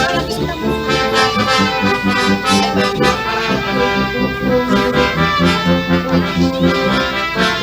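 Music: a tune with a held, brass-like melody over a steady low beat, played loud.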